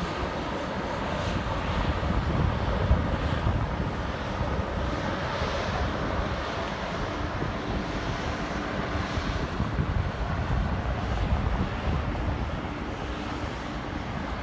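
SJ X2000 high-speed train passing, a steady rushing rumble with faint hissing swells about once a second.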